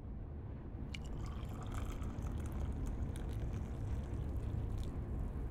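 A drink being poured into a cup, a trickle with small splashes and drips starting about a second in, over a low rumble that slowly grows louder.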